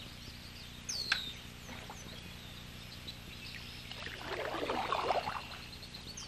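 Canoe paddle stroke: a swishing splash of the paddle through the water from about four to five and a half seconds. Scattered small bird chirps throughout, and a sharp falling bird whistle about a second in.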